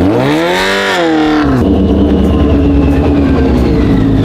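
Sportbike engine revving up and back down, then running at a steady pitch.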